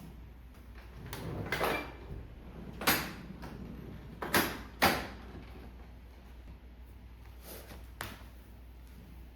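A handful of short knocks and clacks of household things being handled, two sharp ones close together a little before the middle.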